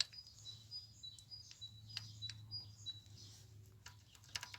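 A small bird chirping repeatedly in short, high notes, with light metallic clicks of engine rocker arms and hydraulic lifters being handled, a cluster of them near the end.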